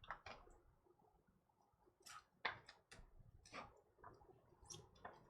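Near silence broken by faint, scattered soft clicks, about half a dozen over a few seconds: trading cards being handled and flipped through.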